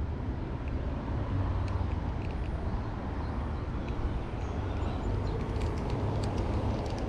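Steady road traffic noise from cars passing by: a continuous low rumble with a tyre hiss over it.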